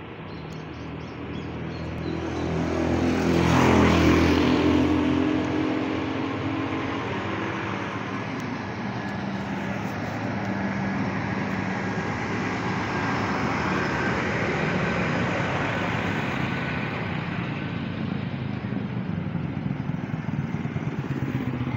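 Road traffic: a motor vehicle's engine swells as it passes close by about four seconds in, the loudest moment, then steady street traffic noise from passing cars and a truck.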